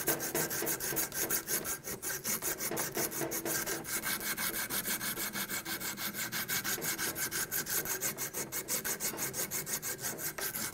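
Strip of medium-grit abrasive cloth drawn rapidly back and forth around an aluminum coolant hose nipple on a Mercedes-Benz water pump housing, a fast, even run of scraping strokes. The abrasive is smoothing out corrosion pitting so the radiator hose will seal.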